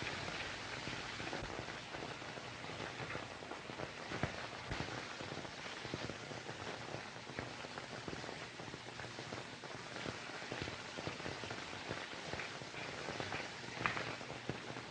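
Rain falling: a steady hiss thick with small patters and crackles, with a couple of sharper ticks about four seconds in and near the end.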